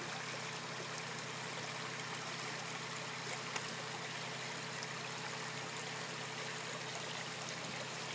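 Small shallow creek flowing over a gravel bed: a steady, even rush of running water.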